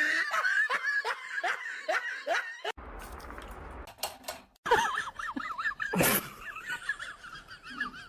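A person laughing in quick repeated bursts, which cut off abruptly a little under three seconds in. After a stretch of hiss, a high, wavering, warbling sound follows to the end.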